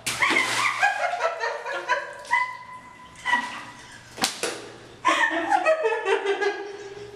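A person laughing in high-pitched bursts, with one sharp click about four seconds in.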